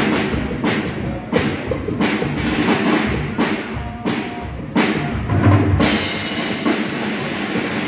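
Live cumbia band playing during a sound check, amplified through the PA and heard from across a large hall. Drums hit steadily about one and a half times a second, with a cymbal crash about three quarters of the way through.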